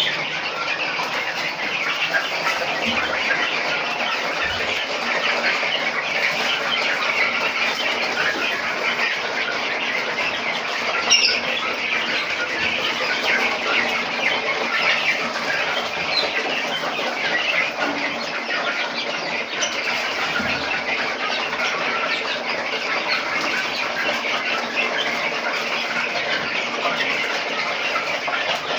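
A large flock of young chickens, Noiler growers among them, peeping and cheeping all at once in a dense, steady chorus, with one brief louder squawk about eleven seconds in.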